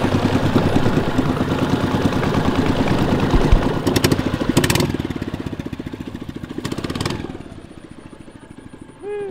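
Long-tail boat engine running with a fast, even putter as it pushes the boat along. About seven seconds in it is throttled back and runs slower and quieter.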